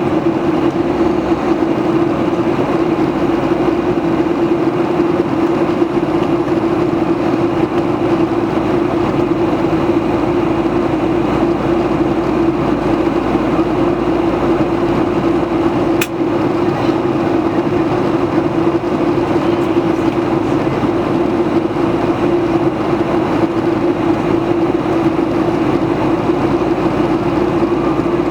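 Cabin noise inside a Boeing 737-800 in flight: the steady drone of its CFM56 jet engines and airflow, with a strong low hum. One brief click about sixteen seconds in.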